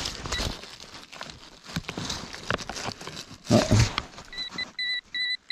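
Gloved hands scrape and rustle through dry leaves, moss and soil in a dig hole, with a thump about three and a half seconds in. Near the end a Nokta pinpointer starts beeping in short, even pulses, about three a second, signalling metal close to its tip.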